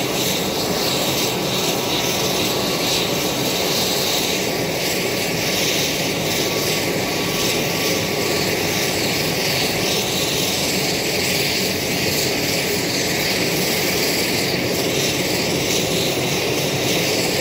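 Saab 340's General Electric CT7 turboprop engines running steadily during a ground engine run: a constant loud roar and hiss with no change in power.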